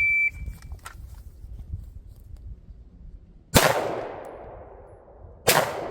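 A shot timer beeps once, then a pistol fires twice, about two seconds apart, each shot followed by a long echo trailing off.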